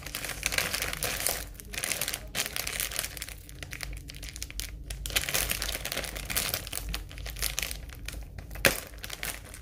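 A plastic potato-chip bag crinkling and crackling as it is handled and its top is folded over, with one sharper crackle near the end.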